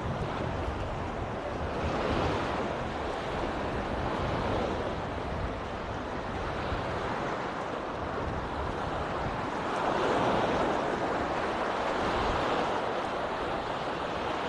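Small Mediterranean waves washing onto a sandy beach in a steady wash that swells now and then, with a low rumble of wind on the microphone.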